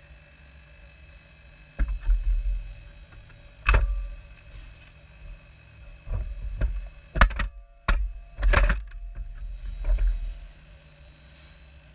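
Rocks dropped by a model excavator's stone grab knocking and thudding into a model truck's metal dump bed: several sharp knocks, each with a low rumble, the loudest cluster around two-thirds of the way through, over a faint steady whine.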